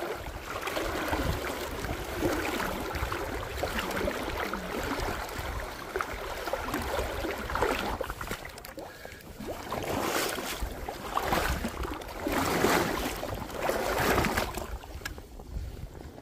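River water washing around a wading angler, with wind buffeting the microphone as a steady rumble; the noise swells louder several times in the second half.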